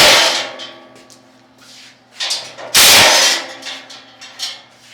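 A power tool, likely a cordless impact driver or wrench, runs in two short loud bursts about three seconds apart to back 10 mm bolts out of a steel crate bracket. Light clicks and clinks come between the bursts.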